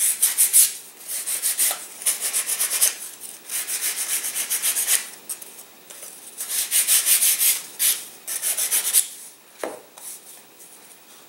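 Sandpaper on a hand-held sanding block rubbed over a balsa wood part in quick back-and-forth strokes: a light sanding, in several runs of scratchy strokes that stop about nine and a half seconds in.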